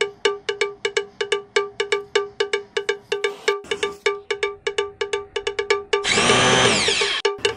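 Background music with a fast, even beat of bell-like notes. About six seconds in, a kitchen mixer grinder runs for about a second, louder than the music, grinding mint, coriander, garlic, green chillies and ginger.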